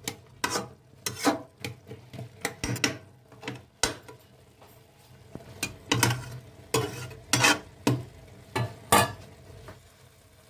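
Spatula scraping and stirring noodles and vegetables in a metal kadai, in a run of short strokes with a brief pause about halfway; the loudest strokes come in the second half, and they stop about a second before the end.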